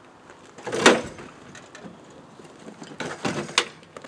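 A heavy clunk about a second in, then a quick cluster of knocks and clacks near the end.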